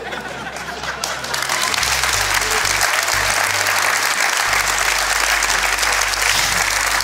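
Studio audience applauding, building up about a second in and then holding steady, over background music with a low bass line.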